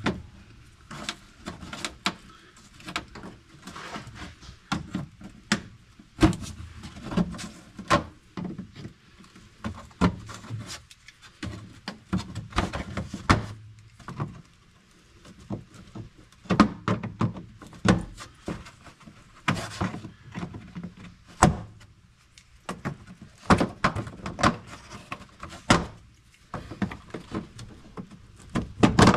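Plastic push-pin rivets being pried out of a side-by-side's floor access panel with push-pin pliers: irregular clicks, snaps and knocks of plastic, the metal tool and the panel being handled.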